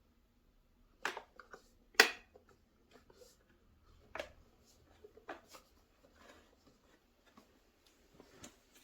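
Scattered light clicks and knocks of something being handled, about half a dozen, the sharpest about two seconds in, with faint rustling between.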